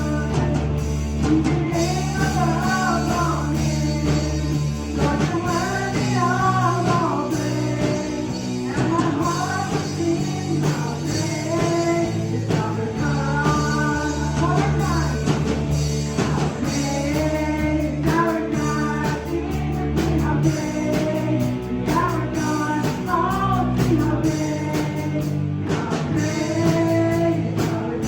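A song with a singer's voice over instruments and sustained bass notes; the sung phrases come and go every few seconds.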